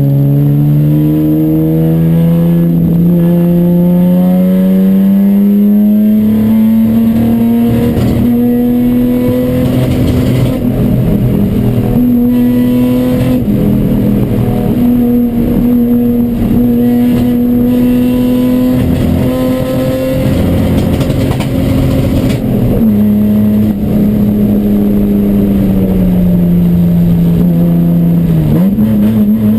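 Race car engine at high revs under load, misfiring: the note climbs over the first few seconds, then holds while it stutters and breaks up irregularly. In the last quarter the revs sag, then pick up again at the end.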